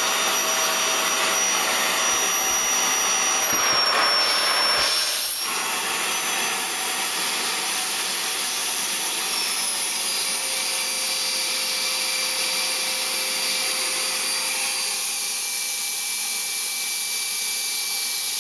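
Vacuum cleaner running steadily with a hissing rush and a high motor whine. The whine dips slightly in pitch about five seconds in and again about ten seconds in, and the sound gets a little quieter after the first dip.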